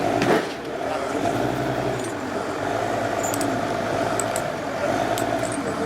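Heavy machine's diesel engine running steadily, with scattered light metallic clinks and rattles over it.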